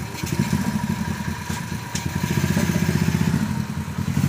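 Small Cub-type single-cylinder four-stroke engine of a home-built BMX-framed motorbike running at idle, growing a little louder for about a second past the middle.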